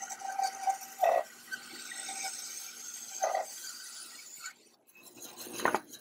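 Bandsaw blade resawing a tall hardwood board fed at a steady pace, a steady cutting sound with a few short knocks. The cutting sound drops away about three-quarters of the way through as the blade comes out of the cut.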